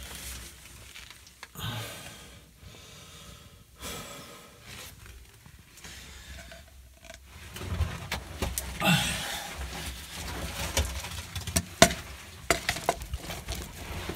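Clothing and gear scraping and rustling against rock as a person crawls through a narrow cave passage, with scattered sharp knocks and clicks from the handheld camera bumping the rock.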